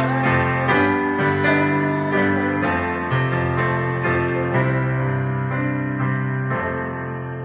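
Yamaha digital piano played with both hands: sustained chords over held bass notes that change about every second, slowly getting softer toward the end.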